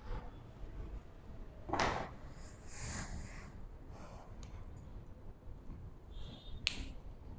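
Quiet room with a few faint rustles and soft knocks, and one sharp click near the end, from the camera being handled and moved.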